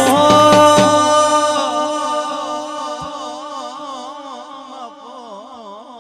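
A voice holding one long sung note in a Gujarati devotional aalap, its vibrato growing wider as it slowly fades; the accompanying drums stop within the first second.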